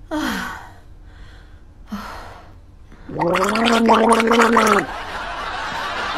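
A man snoring with his mouth open: a couple of breathy snorts, then about three seconds in a long, loud, rasping snore lasting nearly two seconds.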